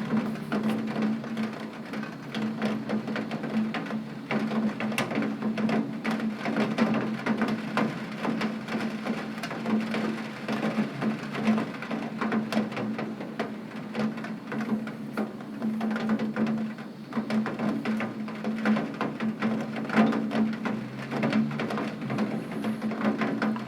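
Rain falling on a tin roof: a dense, irregular patter of drop impacts with no break, over a steady low hum.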